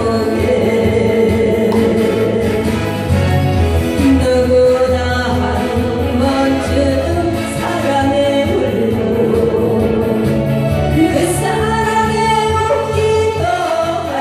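A singer performing a Korean song with instrumental accompaniment; the voice comes in more clearly near the end.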